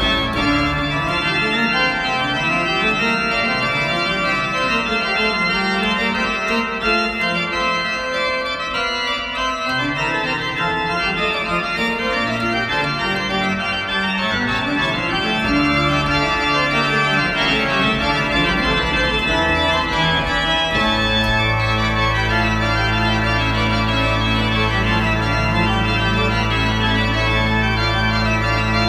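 Organ playing slow music in long held chords. About 21 s in it settles on one low sustained chord with a pulsing note above it.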